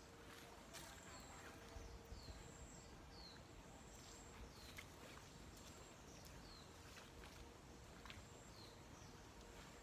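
Quiet garden ambience with a bird faintly repeating short, high, falling chirps at uneven intervals.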